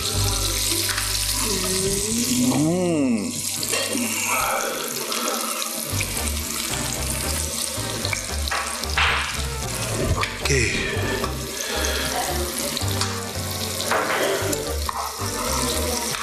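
A hot frying pan just out of the oven sizzling steadily under a chicken fillet topped with cheese and tomato, with background music over it.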